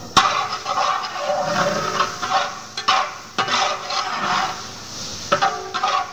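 Long-handled metal ladle scraping and clanking against a large metal cooking pan while stirring diced carrots frying in oil, with several sharp metal knocks.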